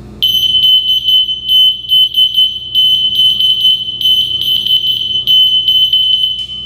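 Mommy I'm Here teddy-bear child locator sounding its alert alarm, set off remotely by the button on its keychain transmitter: a loud, high-pitched electronic tone held at one pitch, pulsing unevenly in level. It stops near the end.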